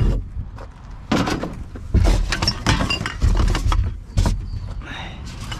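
Rubbish being grabbed and rummaged through in a bin: bursts of rustling and clattering about a second apart.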